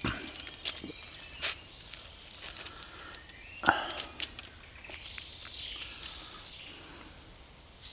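A few light, sharp clicks and knocks of small titanium grill tongs against a little frying pan as food is picked up and eaten, over a quiet outdoor background.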